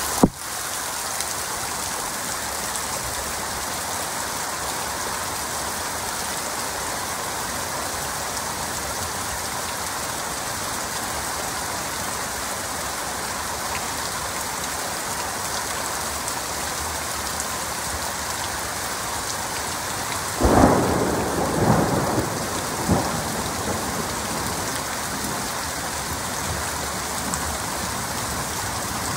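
Heavy rain falling steadily, with a roll of thunder about two-thirds of the way through that rumbles in several peaks over a couple of seconds. A single sharp crack sounds right at the start.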